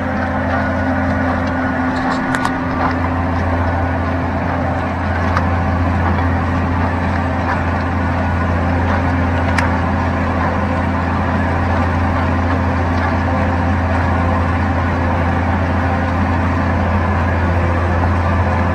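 John Deere tractor's diesel engine running steadily under load as it pulls a pipe-laying ripper through wet ground. A couple of brief clicks sound about two seconds in and near the middle.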